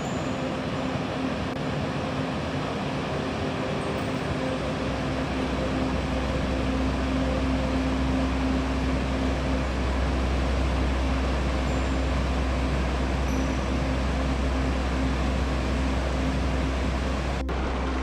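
Steady rushing of river water over rocks, with a deep steady hum beneath it that grows louder about five seconds in and faint held tones above.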